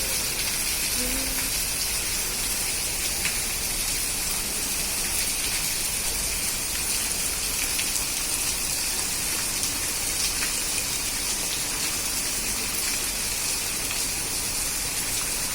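Heavy rain pouring steadily: a dense, even hiss with the odd sharper drop ticking close by.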